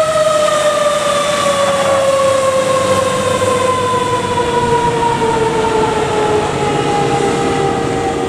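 Fire ladder truck's siren winding down in one long, slow, falling wail as the truck pulls away, the coast-down typical of a mechanical siren.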